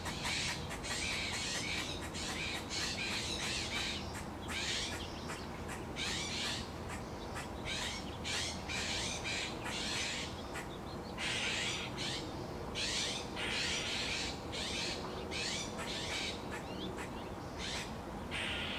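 A racket of birds calling: many short, harsh squawks, one on top of another, with hardly a pause.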